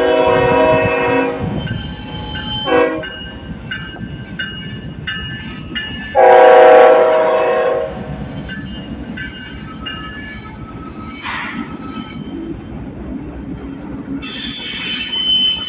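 Union Pacific C45AH diesel locomotive's air horn sounding. A long blast fades out about a second and a half in, then comes a short blip. The loudest part is a second long blast of about a second and a half near the middle. Underneath run the rumble of the moving locomotives and high-pitched steel wheel squeal, strongest near the end.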